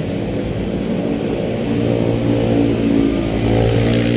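A motor vehicle's engine running, its low hum growing louder through the second half.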